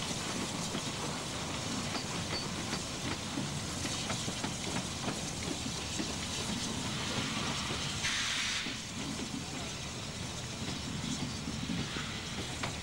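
Steam locomotive hauling a passenger train away, its exhaust and the running gear making steady noise with many small ticks. A short burst of steam hiss comes about eight seconds in.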